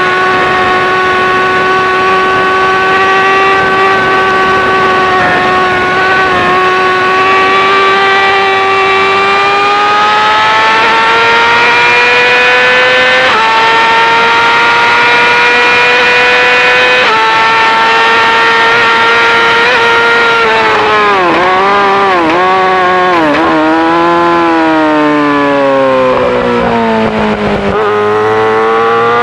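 2018 Yamaha R6 inline-four with an Akrapovic full-system exhaust running at very high revs under full throttle, its pitch climbing slowly and evenly. About two-thirds of the way through, the revs dip sharply several times and then fall away as the bike slows, before climbing again near the end.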